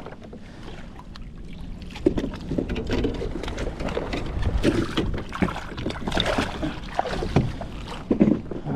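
A hooked snook being landed by hand into a kayak: irregular splashing and knocks against the hull, starting about two seconds in, over low wind noise.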